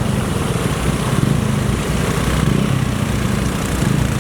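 Small scooter engine running steadily.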